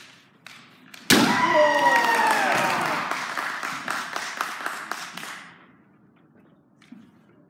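Kendo kiai: a loud shout that starts with a sharp hit about a second in and is held as a long cry falling in pitch, over quick clacks of bamboo shinai and feet on the wooden floor. It dies away after a few seconds, leaving only a few faint taps.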